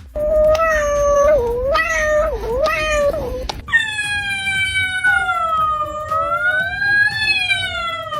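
A cat yowling: a wavering call for about three seconds, then one long drawn-out yowl that rises and falls in pitch and slides down near the end.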